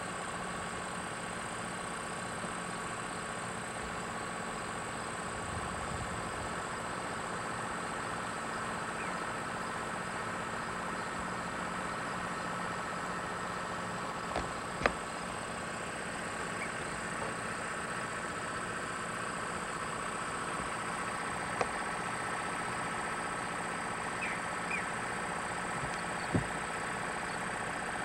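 Steady outdoor background hum and hiss, with a few sharp clicks, the loudest about halfway through.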